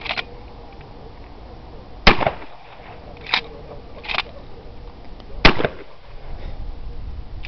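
Two shots from a 12 gauge pump-action shotgun, about three and a half seconds apart. Between them the pump is worked, two sharp clacks as the slide is racked back and forward to chamber the next shell.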